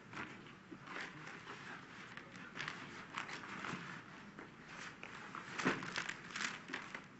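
Sheets of paper rustling and shuffling as documents are handled and passed, with irregular crackles throughout.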